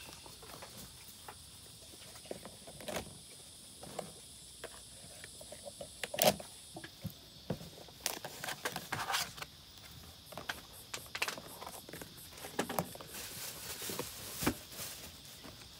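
Black plastic food containers being handled on a table: scattered knocks, clicks and rustles as the inner trays go in, with a sharper knock about six seconds in and a click near the end as a lid is pressed on.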